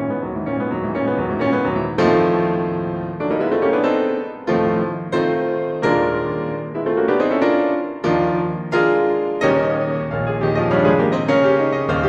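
Piano music: notes and chords struck about once a second, each ringing and fading.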